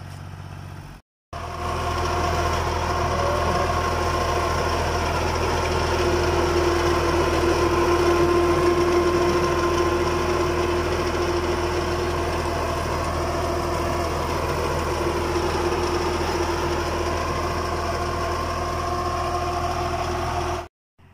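Tractor engine running steadily under load while driving a rotary tiller through the soil. There is a brief break about a second in.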